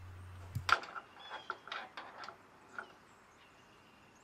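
A string of irregular sharp metallic clicks and taps over about two seconds from the hardware of a truck rack's side post being fitted and bolted into the bed rail.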